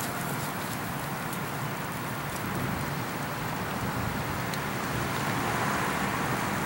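Diesel locomotive running at low throttle as it creeps closer at a crawl, a low steady engine drone under a steady hiss, growing a little louder about five seconds in.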